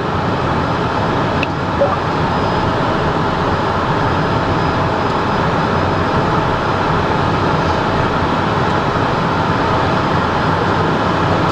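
Steady cockpit noise of a Cessna Citation M2 in the climb after takeoff: airflow and its twin turbofan engines as an even, continuous rushing hiss with a faint steady hum, with one small click about two seconds in.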